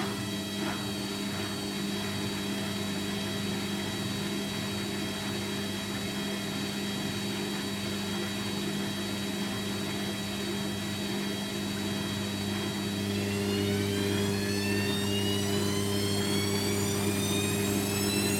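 Hoover Quattro AE130 washing machine's motor spinning the drum with a steady whine and hum. From about 13 seconds in, the whine rises in pitch and gets a little louder as the drum speeds up in the spin.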